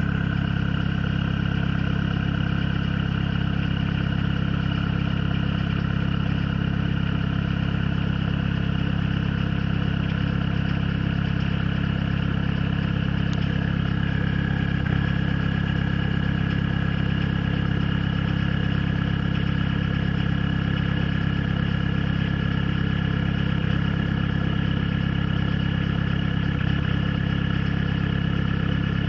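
PSA XUD four-cylinder diesel engine idling steadily with a misfire, which the owner traced to a faulty glow plug and a weak battery.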